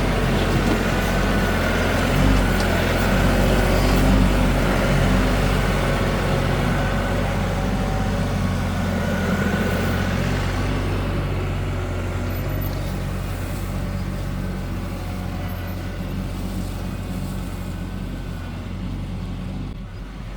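KIOTI NS6010 compact tractor's diesel engine running steadily under work. It is loudest in the first few seconds and eases off a little later on.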